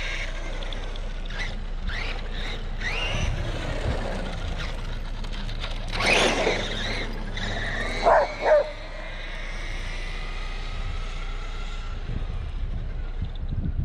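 6S FPV quadcopter's motors and propellers whining, the pitch gliding up and down as the throttle changes, with a louder surge about six seconds in. Two short loud sounds come close together just after eight seconds.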